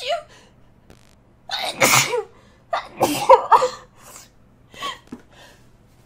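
A person sneezing repeatedly in a sneezing fit set off by dusty books: a loud sneeze about one and a half seconds in, then a quick run of sneezes around three seconds, and a smaller one near the end.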